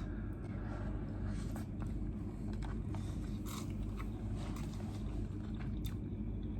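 A person eating hot instant noodles, chewing with scattered small clicks and mouth sounds, over a steady low hum.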